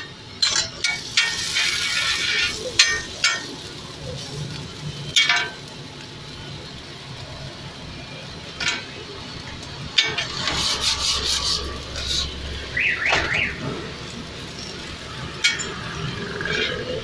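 A slotted metal spatula clinking and scraping on a flat steel griddle as a bun burger is pressed and turned, in a run of sharp taps and scrapes. A short warbling tone sounds for about a second a little past the middle.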